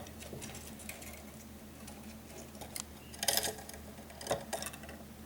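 Small, soft taps, scratches and rustles, with a louder, brief scratchy rustle about three seconds in and another shortly after.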